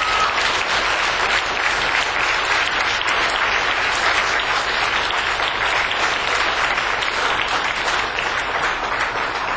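Audience applauding: dense, steady clapping throughout, at an even level.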